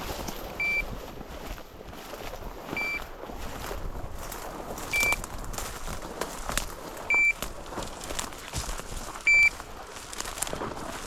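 A hunting dog's beeper collar giving a short high beep about every two seconds, over footsteps crunching and rustling through field cover.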